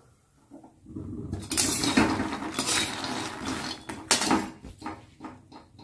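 A metal spoon stirring fox nuts (makhana), almonds and cashews frying in ghee in a pan, scraping the pan and rattling the nuts. It starts about a second in and thins out to a few clicks near the end.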